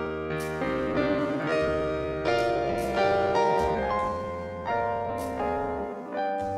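Background music on a piano-like keyboard: a slow run of chords, a new one struck roughly every second and fading, over a held bass note.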